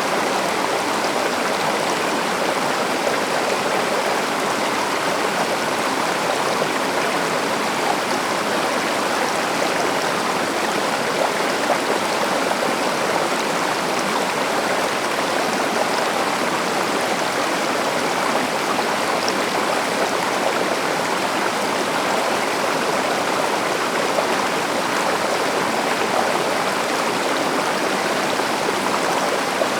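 Forest stream flowing over rocks: a steady rushing of water with small splashes, unchanging throughout.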